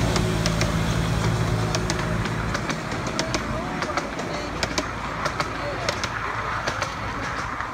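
A steady low mechanical hum, like an engine running, that stops about two and a half seconds in, leaving distant voices and scattered clicks.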